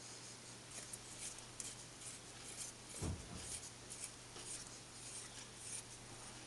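Faint scratchy clicks and scraping of a hand tap being turned in a T-handle tap wrench, clearing packed grime and swarf from a threaded hole in a lathe bed. A soft thump comes about three seconds in.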